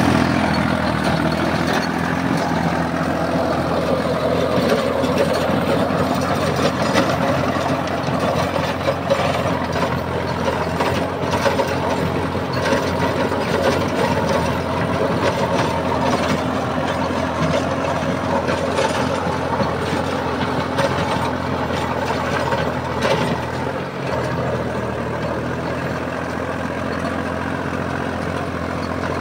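Solis Yanmar 5015 tractor's diesel engine running steadily under load as it pulls a rotary tiller through the field, with scattered brief knocks over the drone.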